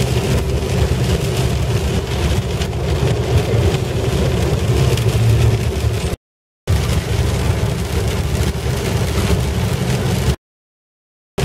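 Inside the cabin of a Ford Mondeo Mk3 with the 2.2 TDCi four-cylinder diesel, cruising at motorway speed around 2,000 rpm. A steady engine drone runs under a hiss of tyres on a wet road. The sound cuts off abruptly about six seconds in, returns, and cuts off again near the end.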